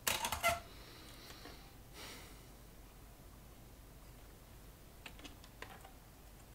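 Handling noise from work inside a metal amplifier chassis. It starts with a quick cluster of sharp clicks and rattles, then soft rustling as twisted wire is handled, and a few light clicks near the end.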